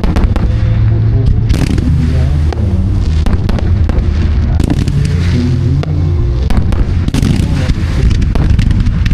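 Fireworks going off in rapid succession: a dense string of sharp pops, bangs and crackles, over a song playing.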